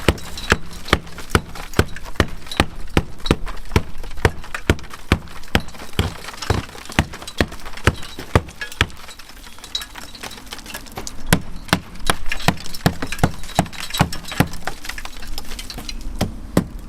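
Repeated sharp hammer knocks on the wall, a few a second, easing off for a couple of seconds midway before picking up again.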